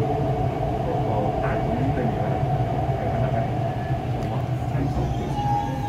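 Steady hum and rumble of an MTR East Rail Line R-Train electric multiple unit at an underground station platform, with a short higher tone near the end.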